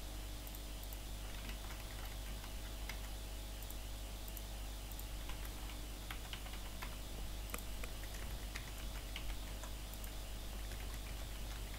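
Typing on a computer keyboard: irregular, light keystrokes over a steady low hum.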